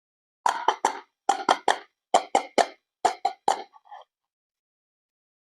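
Short water plops, about a dozen in quick groups of three, with a few fainter ones trailing off about four seconds in.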